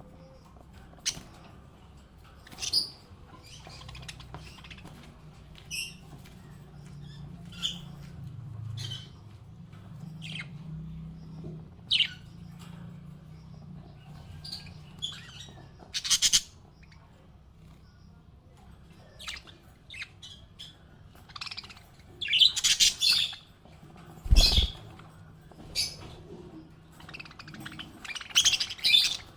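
Small pet parrots chirping and squawking in short, irregular calls, with louder bursts of chatter later on and one short knock-like sound about three-quarters of the way through.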